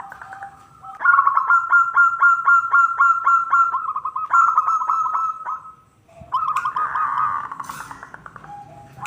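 Zebra dove (perkutut) calling: fast runs of short, clipped cooing notes, about five a second. The notes come in two long bursts, with a brief break about six seconds in.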